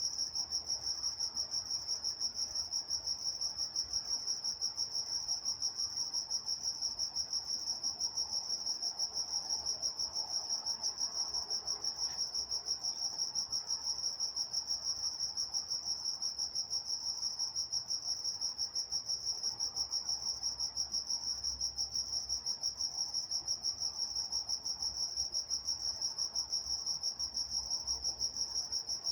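Crickets chirping: a steady, high-pitched chirp repeating in a rapid, even rhythm without a break.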